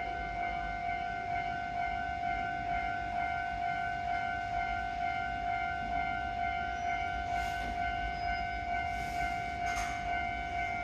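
Keisei 3000 series electric train's VVVF inverter whining on one steady high pitch as the train creeps away from a standstill. A few short hisses come near the end.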